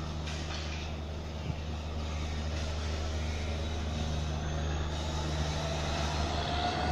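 WDP-4B diesel-electric locomotive's two-stroke EMD 710 engine running as the train approaches, a low steady drone that grows gradually louder.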